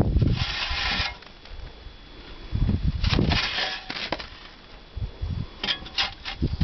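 Snow flung at a border collie three times, each spatter hissing against its fur and the corrugated metal wall, as the dog snaps at the flakes. Dull low thumps come in between, and a few sharp clicks near the end.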